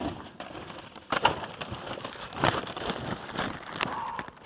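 Rubbish and packaging rustling and crackling as it is handled, with irregular clicks and a few louder knocks, about a second in and again at two and a half seconds, from the phone being pushed about among it.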